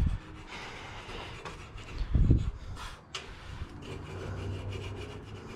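Rasping scrape of a subframe bushing bore being cleaned up so that the new solid bushing will fit, with a dull thump about two seconds in.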